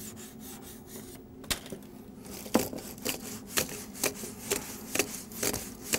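Shadow puppets and their rods being handled behind the screen: light wooden-sounding knocks and taps, about two a second from a second and a half in, over a faint steady hum.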